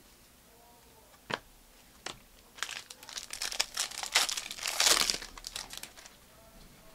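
Foil wrapper of a Panini Prizm trading-card pack crinkling and tearing as it is ripped open by hand, loudest a few seconds in. A single sharp click comes about a second in.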